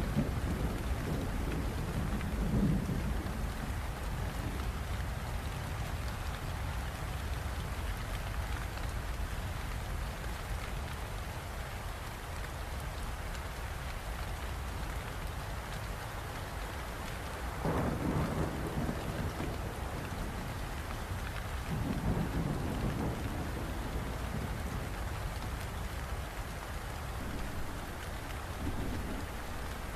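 Steady, even rain with several low rolls of thunder, the strongest about two-thirds of the way through.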